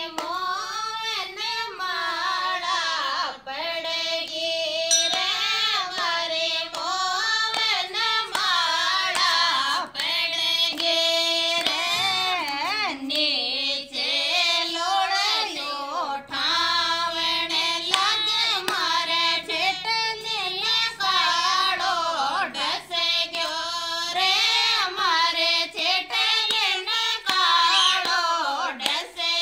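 Women singing a Rajasthani folk song to the folk deity Tejaji without instruments, one long sung line in phrases with wavering, ornamented pitch.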